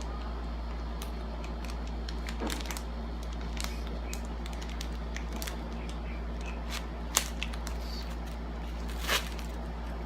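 Scattered crinkles and clicks of a sanitary pad's plastic wrapper being peeled open and the pad unfolded. There is a sharp click about seven seconds in and a longer rustle about nine seconds in, over a steady low hum.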